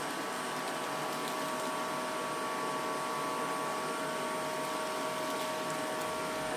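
Steady hiss of a lit gas stove burner under a pot of soup, with a faint steady hum of a few tones running under it.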